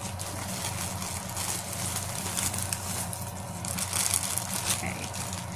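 Plastic packaging rustling and crinkling as hands dig through a torn poly mailer bag and lift out an item sealed in a clear plastic bag; the crinkling is busiest about four seconds in.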